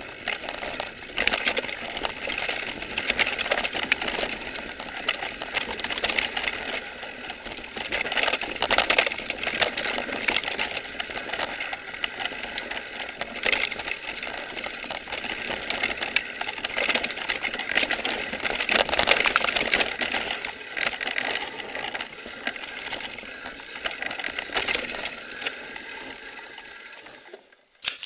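Mountain bike descending a rough, rooty forest trail, heard through a mounted camera: a continuous chattering rattle from the bike and camera mount with tyres on dirt, broken by sharper knocks from roots and rocks. The rattle fades out near the end.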